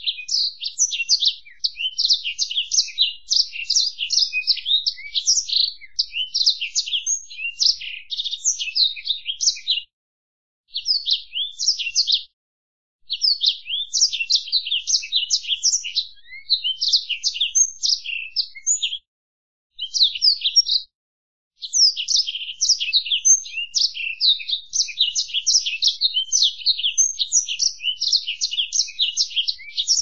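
Black-throated canary (blackthroat) singing a long, fast, high-pitched warbling song of trills and twitters. The song breaks off briefly a few times around the middle.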